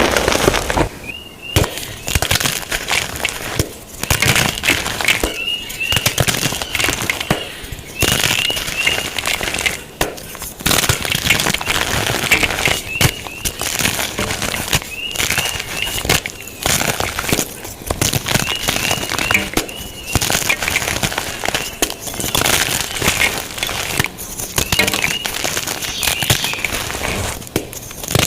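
Blocks of gym chalk being crushed and crumbled, a dense crunching crackle that comes in bursts with brief pauses about every two seconds.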